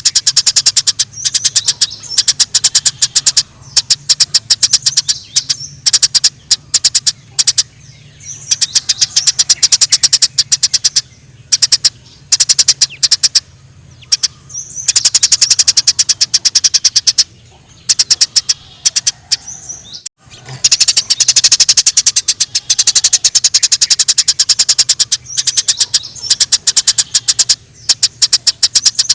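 Eurasian tree sparrows giving the rapid, agitated chatter of fighting sparrows: long runs of sharp, high chirps in quick succession, broken by short pauses. A faint steady low hum runs underneath.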